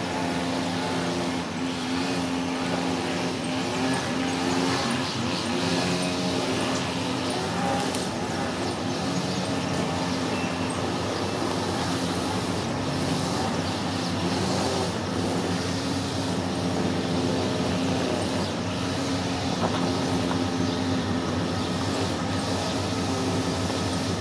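Diesel locomotives of a freight train running as they approach, a steady engine note with its overtones over a rumble.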